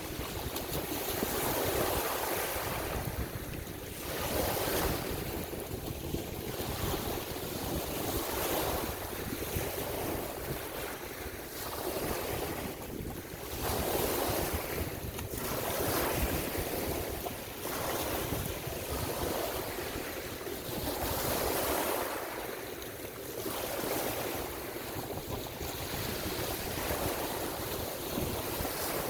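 Ocean waves washing in, swelling and fading every few seconds, with wind buffeting the microphone.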